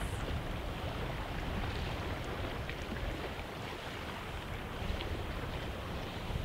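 Wind buffeting the microphone over the wash of the sea against the pier, a steady rushing noise with a gusty low rumble.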